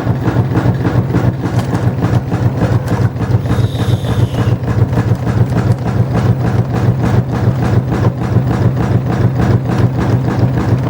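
LG washing machine spinning hard with an unbalanced load: a loud, steady low hum of the drum and motor with a fast, even pulsing.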